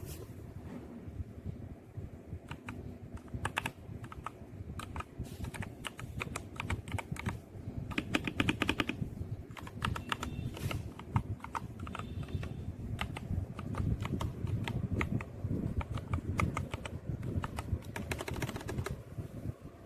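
Typing on a Leaven H96 mechanical keyboard: runs of rapid key clicks in bursts with short pauses, over a low rumble.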